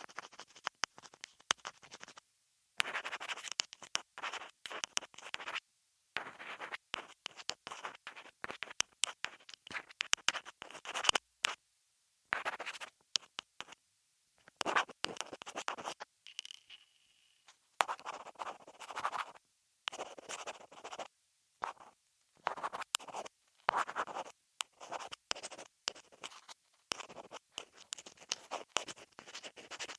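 Handwriting: a writing tool scratching across paper in quick, irregular strokes, with short pauses between words.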